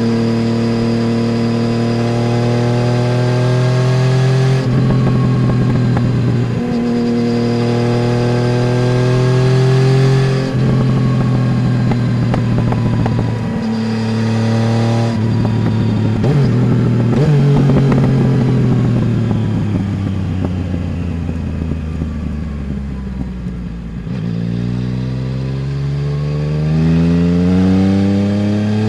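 Yamaha Tracer 900 GT's inline-three engine through a full Roads Italia aftermarket exhaust, heard from under the passenger seat. It pulls up through the gears with several quick upshifts, then the revs fall away for several seconds as the bike slows, and it accelerates again near the end.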